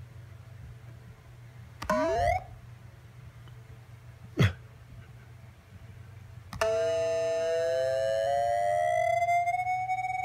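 Synthesizer making electronic sounds: a short rising swoop about two seconds in, a fast falling zap about four and a half seconds in, then near seven seconds a cluster of tones that glide together and settle into one sustained chord.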